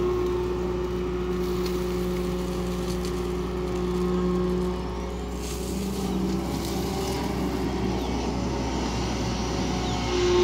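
SANY long-reach excavator's diesel engine running steadily under hydraulic load as the boom lifts a bucket of earth out of the well pit and swings it to the spoil heap. The engine note dips briefly about halfway through and then picks up again.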